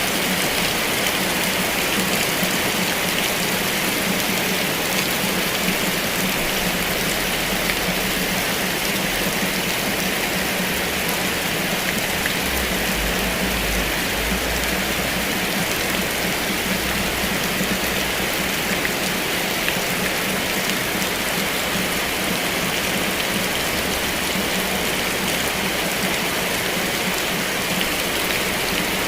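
Heavy rain falling steadily, a dense even hiss of drops striking surfaces, with a faint low rumble about halfway through.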